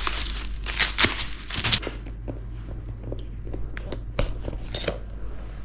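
Paper packaging crinkling for about the first two seconds, then a scattered series of light clicks and taps as the leather bag and its hardware are handled.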